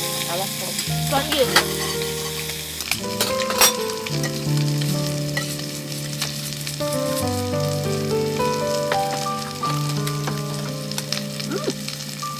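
Food sizzling and frying in a hot pan, a steady crackling hiss with a few sharp clicks, the loudest about a second and a half in and again about three and a half seconds in.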